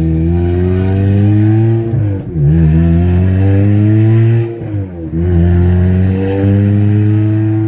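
A 2006 Corolla XRS's 1.8-litre 2ZZ four-cylinder engine revving up hard under full-throttle acceleration. Its pitch climbs steadily, then drops sharply at two quick upshifts, about two seconds in and again near five seconds, and climbs again after each one.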